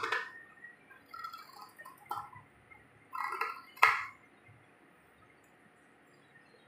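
Scissors cutting through cotton fabric in a few short snips, the blades closing with crisp clicks; the sharpest click comes about four seconds in.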